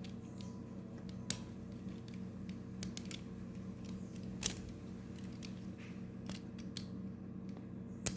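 Plastic Lego pieces clicking as they are handled and snapped together, a few sharp clicks spread over a steady low hum.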